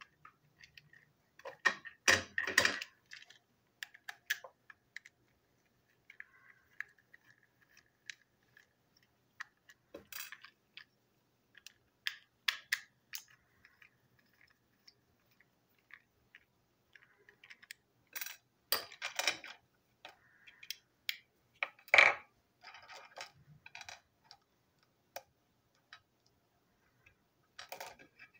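Plastic parts of a TrackMaster toy van clicking, scraping and clattering as it is pried apart with a thin tool and its pieces are set down. Irregular clicks with quiet gaps, the loudest clatters about two seconds in and again about two-thirds of the way through.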